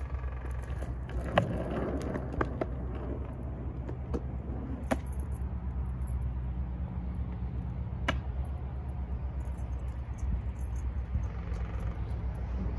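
Skateboard wheels rolling over rough asphalt, loudest in the first few seconds as the board passes close, with a few sharp clacks of the board, the loudest about a second and a half in. A steady low rumble runs underneath.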